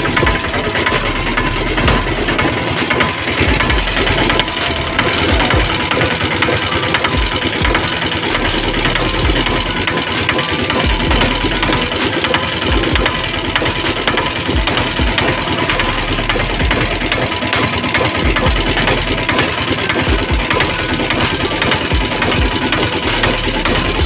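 Piaggio Ape LDX's single-cylinder diesel engine idling steadily, freshly rebuilt with new piston rings, while its idle speed is being set.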